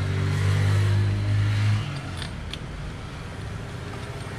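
A steady low motor hum that cuts off about two seconds in, followed by a couple of light metallic clicks from a socket wrench on a spark plug.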